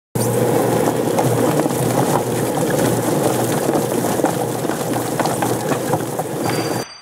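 Homemade Wizbang-style chicken plucker running, its 3/4-horsepower motor spinning the rubber-fingered plate while a chicken tumbles against the fingers: a steady hum under a dense, rapid clatter. It cuts off suddenly near the end.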